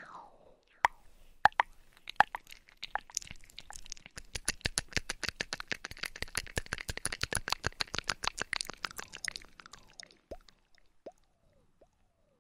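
Close-miked ASMR trigger sounds: scattered crisp clicks and small pops, building about four seconds in into a fast run of clicks, several a second for about five seconds, then thinning back to a few single pops with a falling pitch.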